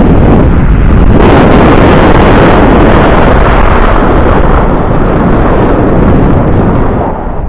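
Wind rushing over the microphone of an action camera riding on a moving electric bike: a loud, steady rush that eases slightly near the end.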